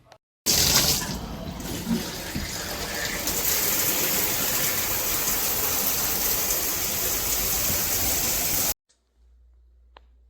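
Water spraying from a Veken dual shower head, a steady rushing hiss. It starts abruptly about half a second in and cuts off sharply near the end.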